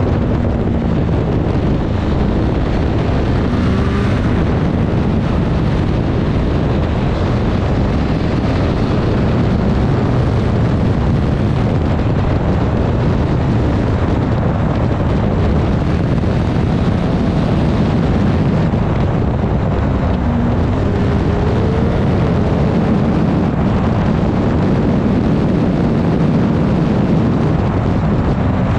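Heavy wind noise on the microphone, with a Triumph Street Triple 765 RS's three-cylinder engine underneath, its pitch rising and falling with the throttle.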